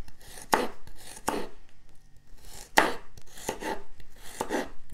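A knife chopping carrots on a wooden cutting board: about ten uneven knocks of the blade through the carrot onto the board, with a pause of a second or so in the middle.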